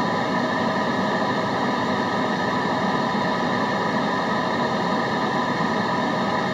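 Steady white noise at an even level, with a few faint fixed hum tones running through it, like a machine or vehicle drone.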